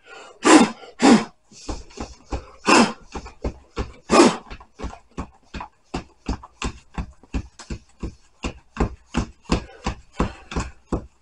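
Cut sheet of marine vinyl slid across a table and rolled up by hand: a few loud rustling swishes in the first seconds, then a quick run of short crackles and taps, about three a second, as the roll tightens.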